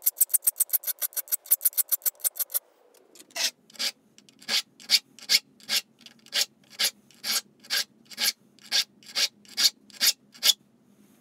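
Hand file rasping across the steel teeth of a Sandvik crosscut handsaw as the teeth are sharpened, one stroke per pass. A quick run of about six strokes a second stops about two and a half seconds in; after a short pause the strokes come slower, about two a second, until just before the end.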